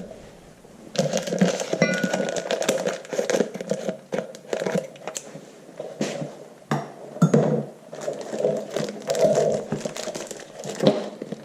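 A cardboard box and its wrapping being opened by hand to take out a new, oil-coated tapered roller bearing race: irregular crinkling and rustling, broken by small clicks and knocks.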